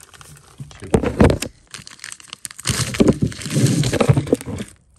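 Handling noise: rustling and scraping with scattered clicks and knocks in two spells, as steering-rack parts are picked up and handled.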